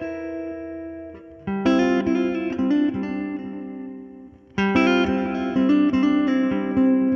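Electric guitar played through a Hotone Ampero One amp-modelling multi-effects unit: a chord rings and fades, then two phrases of picked chords and notes start about a second and a half in and about four and a half seconds in, each left to ring and die away.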